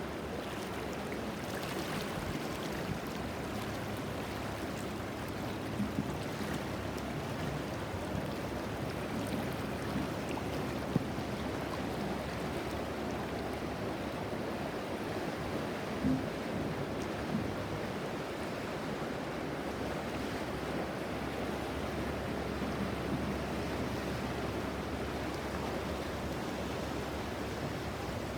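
The Ganges River flowing with a steady rush of water. A few brief soft knocks come through now and then.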